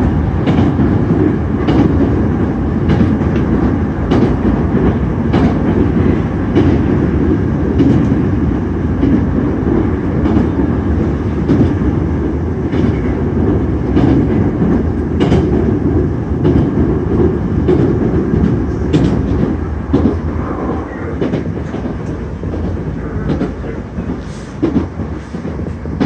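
Hankyu Kobe Line commuter train running, heard from inside the carriage: a steady low rumble of wheels on rail with irregular clacks over the rail joints. The noise grows quieter over the last few seconds.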